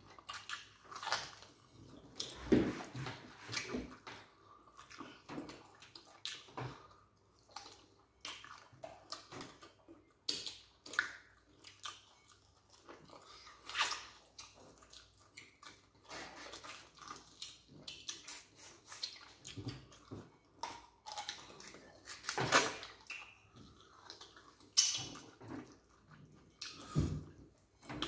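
Close-up wet eating sounds from people eating slimy okra soup and starch by hand: irregular chewing, slurping and lip-smacking, with a few sharper smacks standing out.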